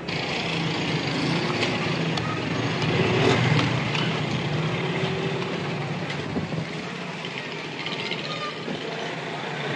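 Pakoras deep-frying in hot oil in a black iron karahi: a steady sizzling hiss with scattered crackles, over a low steady hum.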